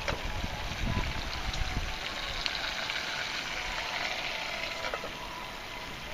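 Wood campfire burning, crackling with scattered sharp pops over a steady hiss. A low rumble comes through in the first two seconds.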